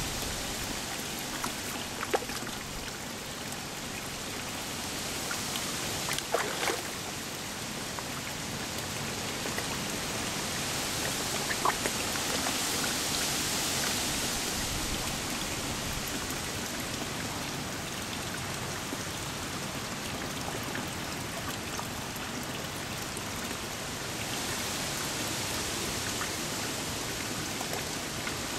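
Koi splashing and churning the pond surface as they feed on floating pellets, a steady watery hiss with a few sharper splashes about 2, 6 and 12 seconds in.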